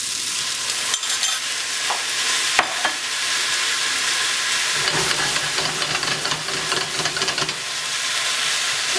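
Spaghetti and mushrooms sizzling in hot oil in a crowded frying pan, a steady frying hiss, with one sharp click about two and a half seconds in.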